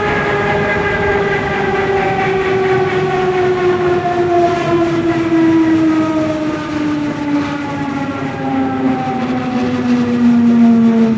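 Berlin S-Bahn class 485 electric train's drive whining, a howl of several tones that falls steadily in pitch as the train slows into a station, over a running rumble.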